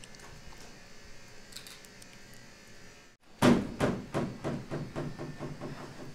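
Model passenger train running by close: from about three and a half seconds in, a rhythmic clicking of wheels on the track, about five clicks a second and slowly fading, over a low motor hum. Before that, faint room tone.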